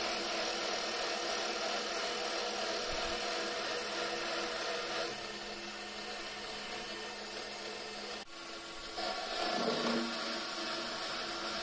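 Weisan WM210F400 benchtop metal lathe running with its spindle at about 1300 rpm, a steady whir with scraping as the cutter works a galvanized steel pipe. The sound gets quieter about five seconds in and breaks off briefly at about eight seconds.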